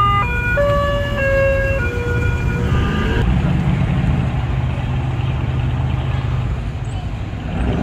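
A short tune of stepped, horn-like notes, mostly falling, which stops about three seconds in. A steady low rumble of classic car engines running in the street follows.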